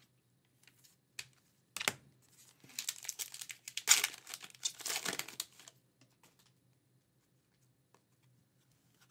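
Foil trading-card pack torn open by hand, its wrapper crinkling, loudest about four seconds in and dying away a couple of seconds later. A couple of short clicks come before it.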